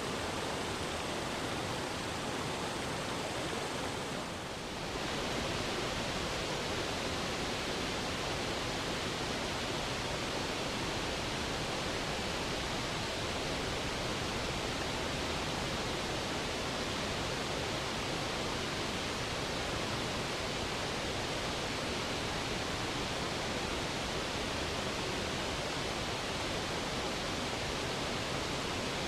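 Water rushing down the tiered cascades of Saluopa Waterfall: a steady, dense hiss of falling water that dips briefly about four seconds in.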